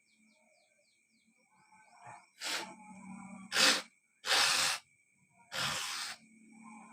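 A person blowing out hard through the nose and snorting in four short, loud bursts about a second apart, starting a couple of seconds in, as phlegm is expelled during gurah nasal treatment.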